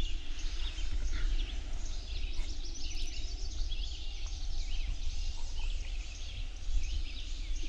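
A dawn chorus: many songbirds chirping and singing at once, with a steady low rumble underneath.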